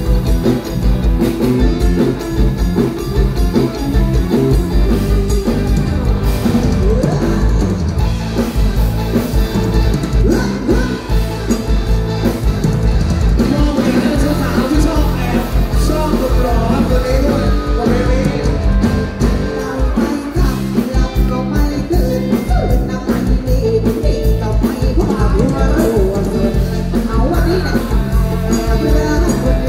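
Live band music, loud and continuous, with a drum kit keeping the beat and a woman singing into a microphone.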